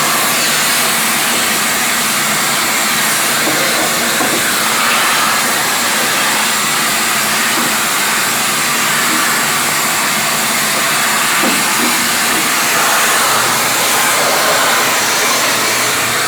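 Steady, loud rushing air noise of running machinery, unbroken throughout.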